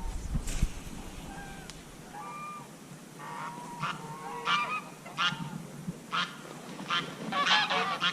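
Geese honking: a few scattered calls at first, then quicker, louder honks building toward the end. A dull low thump comes right at the start.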